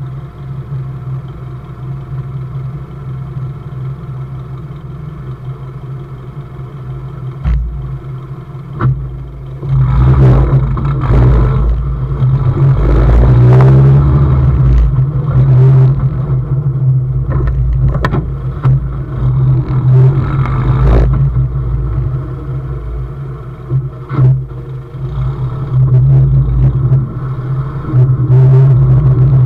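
UAZ running, heard from under the rear axle: the engine idles at first, then the vehicle pulls away about ten seconds in and the engine revs up and down as it drives, with a few sharp knocks from underneath.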